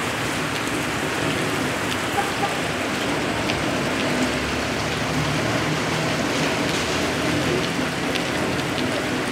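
A hailstorm: hail and rain falling steadily in a dense hiss, with scattered sharp ticks of hailstones striking the ground.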